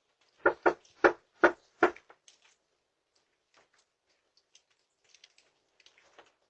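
Five sharp knocks on a door in quick succession, the first two close together, followed by a few faint ticks.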